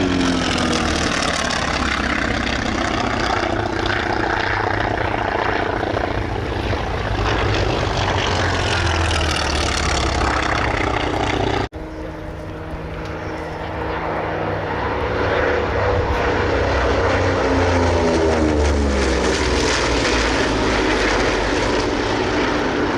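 Propeller-driven warbirds, T-28 Trojans, making low passes: a steady piston-engine drone whose pitch drops as each plane goes by. About halfway there is an abrupt cut to another propeller plane's pass, with its engine pitch rising and then falling.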